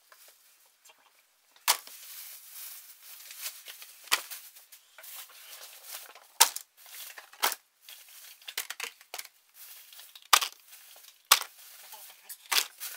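Cardboard parts boxes being set down one after another on a paper- and plastic-covered workbench: several sharp taps, with paper and plastic crinkling and rustling in between.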